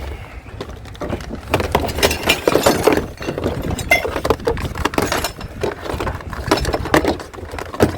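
Clattering and clinking of hard scrap being handled and shifted about: a quick, irregular run of knocks and clinks, some of them glassy.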